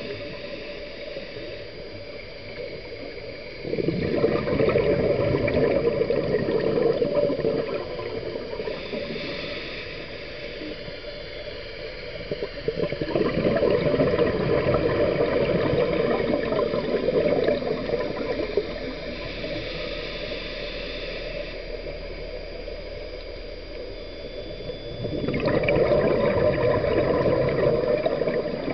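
Scuba diver breathing through a regulator underwater: three long bubbling exhalations, about ten seconds apart, with quieter stretches of faint hiss between them.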